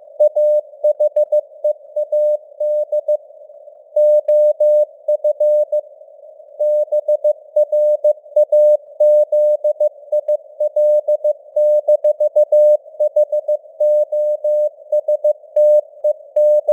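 Morse code sent at 15 words per minute: one steady mid-pitched tone keyed in short dots and long dashes, with longer pauses between words, over a narrow band of simulated radio hiss.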